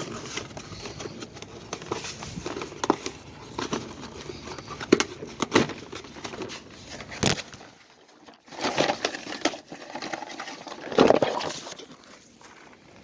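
Retail packaging being opened by hand: irregular rustling and crinkling with scattered clicks and knocks, a short pause about eight seconds in, then a louder burst of handling about eleven seconds in.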